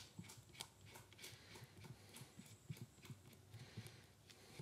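Faint, irregular scraping and clicking of a stirring stick against a cup and bowl as resin binder is worked into powdered Bengal fire composition.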